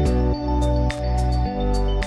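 Background music: sustained synth and bass chords with a steady percussive beat.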